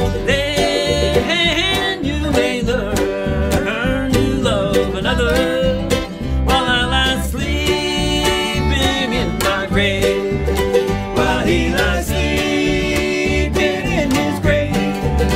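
Bluegrass band playing an instrumental break: acoustic guitar, mandolin, dobro and upright bass, with a lead line of sliding, bending notes over a steady bass pulse.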